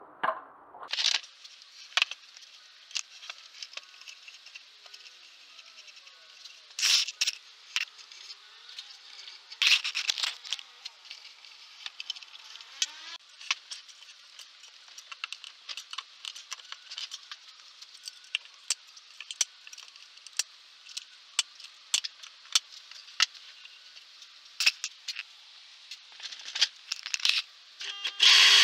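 Scattered sharp clicks, rattles and knocks of hand tools and MDF lathe parts being handled during assembly, including pliers snipping cable ties. The loudest knocks come about seven and ten seconds in.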